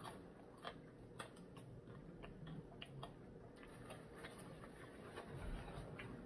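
A person chewing crispy fried chicken: faint, irregular crunching clicks from the mouth, about two or three a second.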